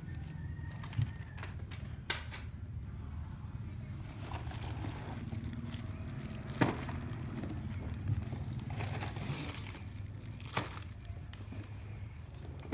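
Plastic packaging crinkling and rustling as toy parts are taken out of a cardboard box, with a few sharp knocks of pieces being handled, the loudest about halfway through.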